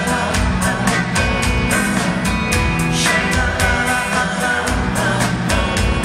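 Pop song playing, with a steady drum beat and a melodic line over it.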